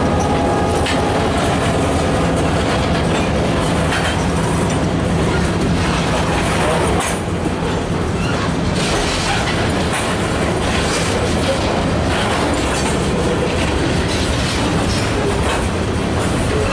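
Freight train of covered hopper cars rolling past close by, steel wheels clacking over the rail joints in an uneven series of knocks.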